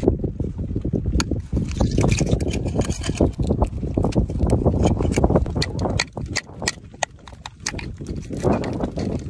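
A metal pick clicking and scraping against oyster shells on a rock, with many sharp clicks over a steady low rumble. The sound drops quieter about six seconds in.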